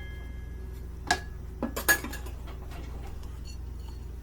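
Kitchenware clinking: three short knocks of a measuring cup or utensil against dishes, about a second in and just before two seconds, over a steady low hum.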